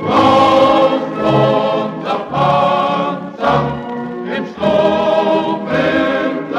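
Choir singing an old German Landsknecht marching song, in short phrases with brief breaks between them.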